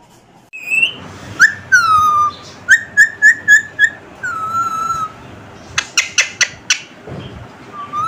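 Pet green parakeet whistling: a string of clear whistles that rise and fall, a quick run of about five short notes, and a few sharp clicks near the middle.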